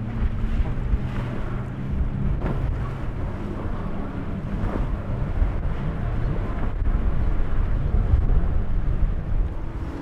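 Outboard motors of center-console boats running at speed, a low engine drone mixed with the splash and wash of the hulls through choppy water. Wind gusts on the microphone.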